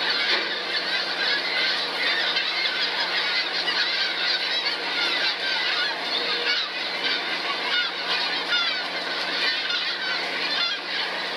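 A big flock of seabirds calling continuously, a dense chatter of many overlapping squawks, over a steady low hum of the boat's machinery.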